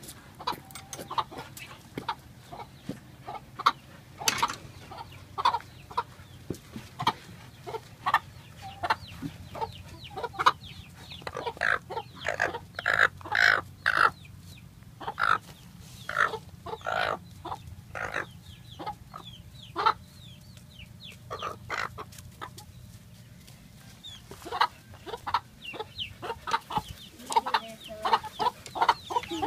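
Hens clucking in many short, repeated calls while pecking at and eating tomato hornworms. The calls come thickest in the middle stretch and again near the end.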